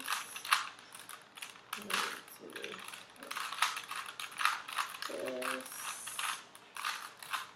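Plastic Rubik's cube being twisted quickly, its layers clicking and rattling in rapid, irregular turns.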